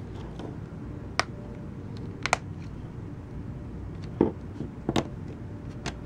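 Plastic back cover of a Samsung Galaxy S4 being pried off by fingernail, its clips snapping loose in a handful of sharp, separate clicks.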